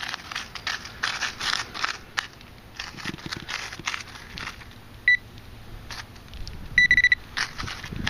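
Pinpointer probe scraping and crunching through crumbled dirt clods on newspaper, with a short beep from the pinpointer about five seconds in and a quick burst of high beeps near seven seconds.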